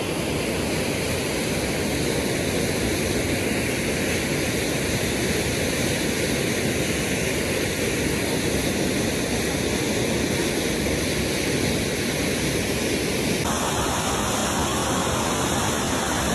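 Steady rush of water pouring through a dam, a loud even noise without pause.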